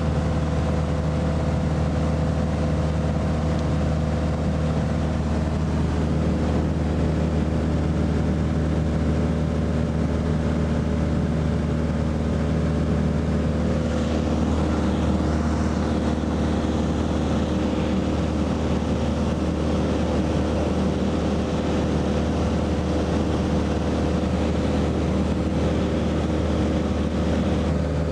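Aircraft engine noise heard inside the cabin in flight: a steady hum with several held low tones over a rushing hiss. About halfway through, some of the tones shift and the hiss grows slightly.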